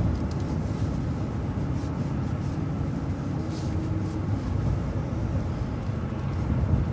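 Steady low rumble of a road vehicle driving, engine and road noise heard from inside the cab.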